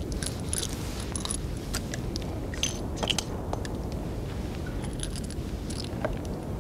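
Revolver being reloaded by hand: cartridges clink and the gun clicks in a scatter of small metallic sounds, over a steady background hiss.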